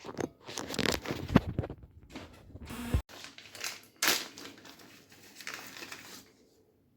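Irregular handling noise: clicks, knocks, scraping and crinkling, with a sharp knock about three seconds in and another about a second later.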